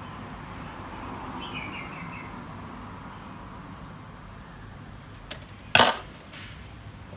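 Sharp metallic clink about six seconds in, a tool touching down on metal, with a lighter tap just before it, over low, steady workshop room noise while a backlight LED is being soldered.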